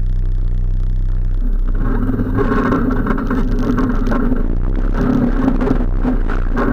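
ATV engine idling low, then throttled up about a second and a half in, its note stepping higher and running steadily as the quad rolls forward slowly.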